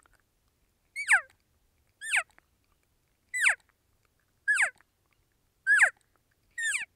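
Cow elk calls on a latex diaphragm elk call: six short calls about a second apart, each starting high and sliding sharply down in pitch. They are made with tongue pressure alone, the tongue flexing to push trapped air across the latex with no air from the lungs.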